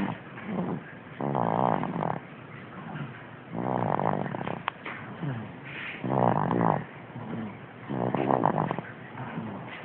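A baby asleep in a bouncer, snoring: a rasping snore on each breath, with four louder snores about every two seconds and softer breaths between them.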